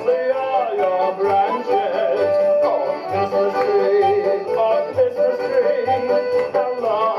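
Christmas song medley music: a lead melody line over a steady, regularly pulsing bass beat.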